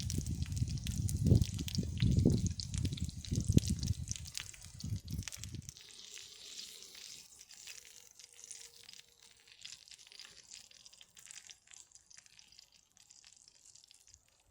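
Pork sizzling and crackling on a hot cast-iron grill. Heavy low thumps and rumble sound over it for about the first six seconds, then stop, leaving only a faint crackle.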